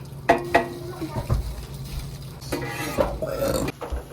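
Metal utensils clinking and scraping on cookware while breakfast is cooked: two sharp ringing clinks about a third of a second apart near the start, then a longer clatter about two and a half seconds in.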